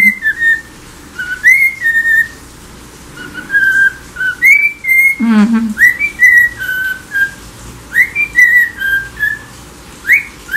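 Lutino cockatiel whistling its song: short phrases of clear whistled notes, each starting with a rising slide and then holding or stepping down, repeated with short pauses.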